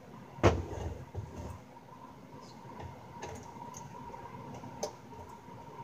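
A single hard knock about half a second in as the Yamaha THR10 guitar amp is laid down on the wooden workbench. It is followed by a few scattered light clicks and ticks of hand work at the amp's front-panel knobs.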